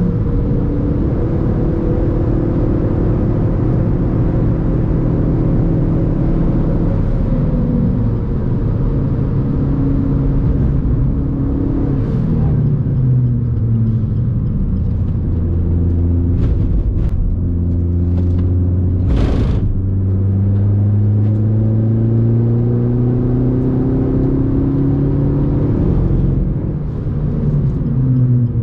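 The Suzuki Swift Sport's 1.4 Boosterjet turbo four-cylinder, on an aftermarket Ragazzon exhaust, is driven hard on track and heard from inside the cabin. Its pitch climbs under acceleration and drops at each gearchange and braking zone. A short sharp hiss comes about two-thirds of the way through.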